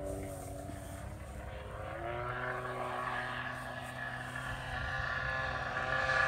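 Model jet-and-gas hybrid plane, a gasoline piston engine together with a JetCat P-80 turbine, droning in flight overhead. The engine note shifts in pitch as it flies and grows louder toward the end as the plane comes closer.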